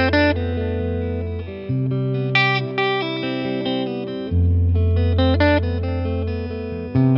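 Eastman T185MX semi-hollow electric guitar played through a Boss Nextone amp in a one-take improvisation. Low bass notes ring for two to three seconds each under chords and short single-note lines picked higher up.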